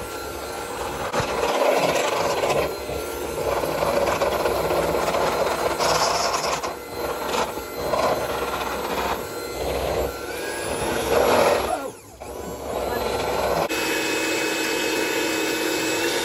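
Cuisinart electric hand mixer running, its beaters whisking yeast waffle batter and rubbing against a stainless steel bowl. The sound swells and eases as the beaters move through the bowl and drops briefly about twelve seconds in before running on steadily.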